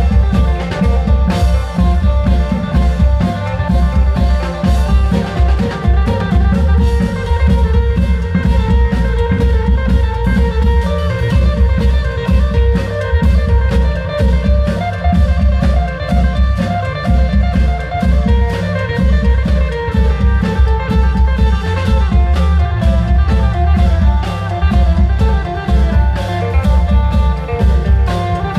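Isan klong yao long-drum band music played through an amplified sound system: a heavy, steady drum beat under a plucked-string melody.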